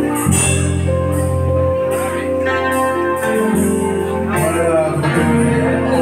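Live band music from keyboards and an electronic drum pad. Held bass notes change every second or two under sustained keyboard chords, with recurring cymbal hits from the drum pad.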